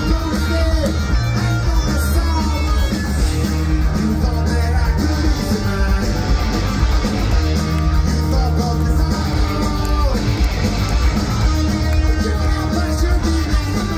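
Rock band playing live through a large festival PA: electric guitars, bass and drums, with a lead vocal, heard from within the crowd.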